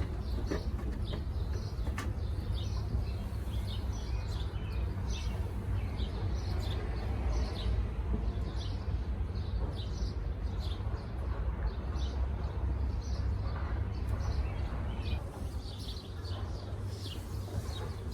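Small birds chirping in many short, high calls, over a steady low rumble.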